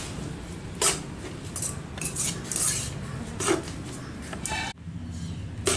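Steel spoon scraping and knocking against a metal kadai as cooked rice is mixed into fried grated carrot. The knocks come at irregular intervals, several times over the stirring.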